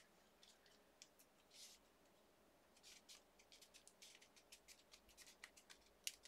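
Faint rustling and small ticks of cardstock pieces being handled and pressed together by hand, busier in the second half.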